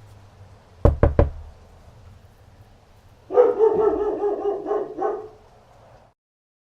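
Three sharp knocks in quick succession, then a dog barking in a drawn-out, pitched run lasting about two seconds.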